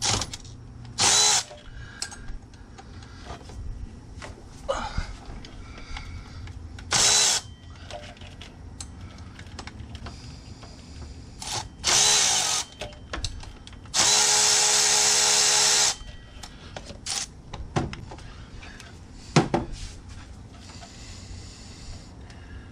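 Power tool run in four bursts, the last a steady run of about two seconds, backing out the bolts of a Honda S2000's water pump pulley. Small knocks and clicks of tools and parts between the bursts.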